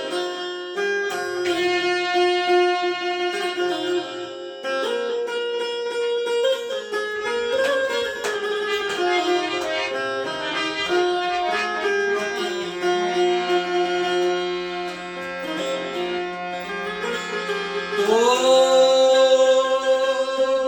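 Indian devotional music: a melodic instrumental passage of held notes with a plucked-string accompaniment. Near the end a new phrase slides up into a louder held note.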